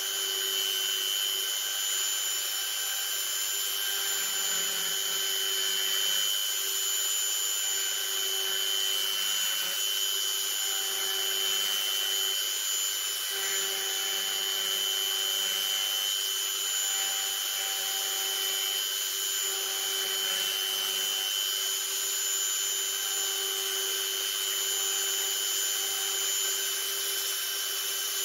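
Steady hiss with a constant whine from a small motor running, over soft irregular scraping of a craft knife cutting along the edges of carved pine.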